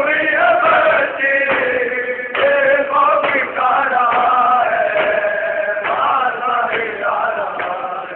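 A group of men chanting a noha, a Shia mourning lament, in unison, with occasional sharp slaps from chest-beating (matam) cutting through.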